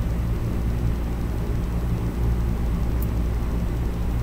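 Steady low hum and rumble with an even hiss, with one faint tick about three seconds in.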